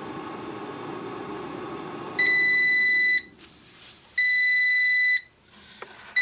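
Power AirFryer XL's fan running, then falling quiet as the cooking cycle ends, followed by two long, high-pitched beeps about a second apart signalling that the timer has finished and the food is done.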